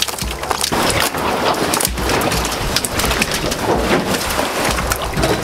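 Wind buffeting the microphone in uneven gusts, with scattered knocks and clatter as fish are handled on the boat deck.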